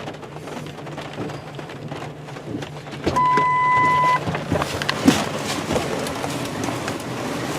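Inside a Ford F-250 pickup with rain falling: a steady low hum and a patter of rain on the truck. A single clean electronic beep about a second long sounds about three seconds in, with a few light clicks after it.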